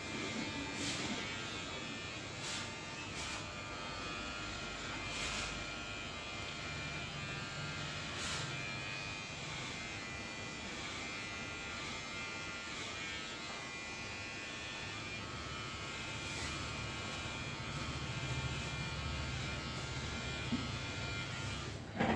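An electric hair clipper runs with a steady buzzing whine, with a few short clicks in the first half.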